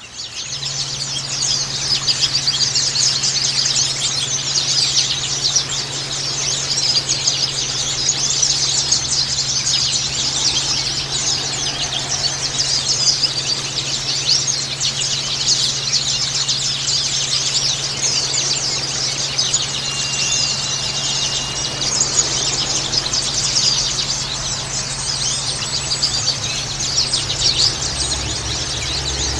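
Many white-eyes (pleci, Zosterops) chirping and twittering at once in a dense, unbroken chorus of high notes, with a steady low hum underneath.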